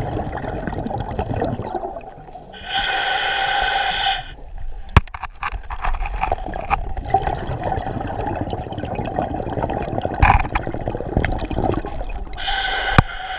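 A scuba diver's breathing regulator underwater: a hissing inhalation about two and a half seconds in and another near the end, with crackling and bubbling between them.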